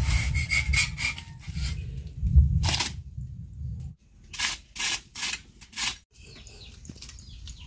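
Dry twigs snapping as they are broken by hand for firewood: crackling over a low rumble in the first half, then four sharp snaps about half a second apart. Birds chirp near the end.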